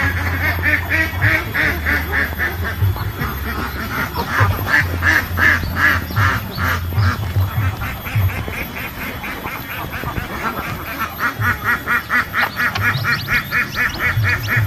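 Animal calls in fast, even runs of about three to four a second, coming in three bouts, the last lasting several seconds.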